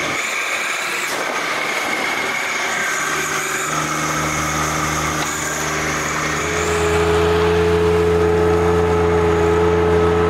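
Small tractor's engine and loader hydraulics working under load as the Stump Buster digs in and pries a stump out. A steady whine at first, then a lower steady hum comes in about four seconds in and grows louder a couple of seconds later, holding as the root ball lifts.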